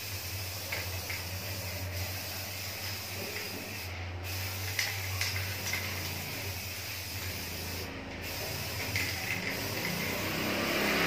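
Aerosol spray can hissing as clear top coat is sprayed onto a bicycle rim, breaking off briefly twice, over a steady low hum.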